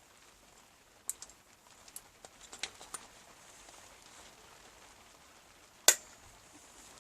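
Light clicks and taps from small hard parts being handled, then one loud, sharp click about six seconds in.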